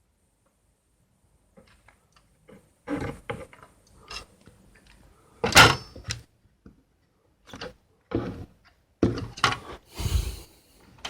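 Hands working with a hot glue gun on an open PC power supply: irregular clicks, knocks and rustles, the loudest a sharp knock a little past halfway, with a rustling scrape near the end.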